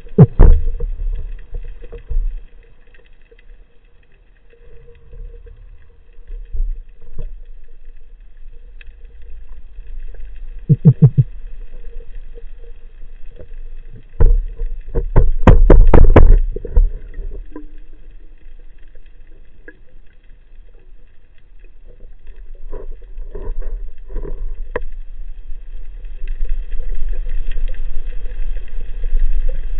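Underwater sound near a speargun: a steady low rumble and faint hiss, broken by a short bubbling gurgle and, about halfway through, a quick run of sharp knocks, with lighter clicks later. These are the diver's lure calls to draw bluefish: a released air bubble and taps on the speargun's butt.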